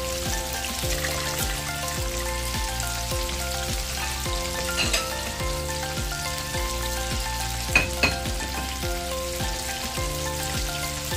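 Flour-coated squid deep-frying in hot oil in a pan, a steady crackling sizzle, with two sharp clicks about eight seconds in. Soft background music with a steady beat plays under it.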